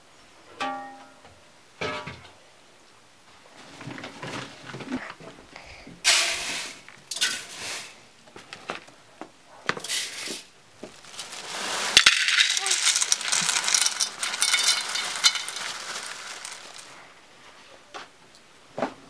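Dry uncooked rice poured from a glass jar into a large aluminium basin, the grains hissing and rattling against the metal, longest in a pour of about five seconds two-thirds of the way in. Clinks and knocks of metal bowls come in between.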